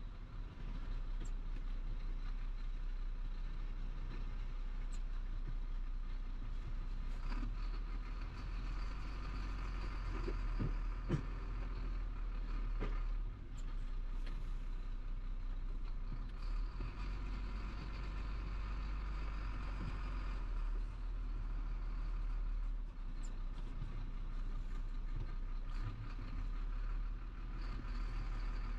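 Truck's diesel engine running steadily at low speed, heard from inside the cab as a continuous low rumble while the truck manoeuvres slowly, with a few brief knocks near the middle.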